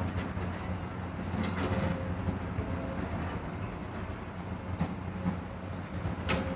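Steam train of C11 325 hauling 14-series coaches running away down the line: a steady low rumble with a few sharp clicks.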